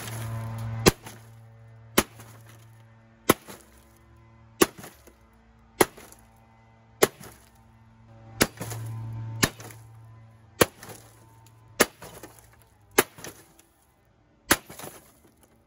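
A smashed 2006 Sylvania 15-inch LCD TV is struck again and again with a long metal club, about twelve sharp blows a little over a second apart, on its plastic frame and broken screen panel. A low steady hum swells and fades behind the blows.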